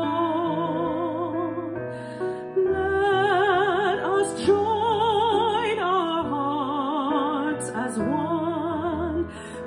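Soprano singing a slow hymn with wide vibrato, accompanied by keyboard and electric bass. There are short breath pauses between phrases, about two seconds in and near the end.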